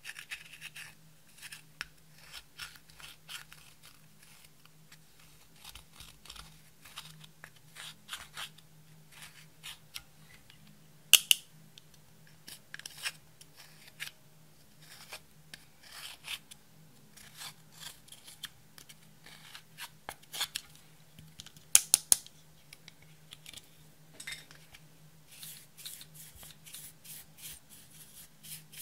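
Pressed eyeshadow being scraped and crumbled out of a plastic palette with a pointed tool: dry, irregular scratching and crackling ticks. Twice, about a third and about three quarters of the way in, there is a loud sharp double click.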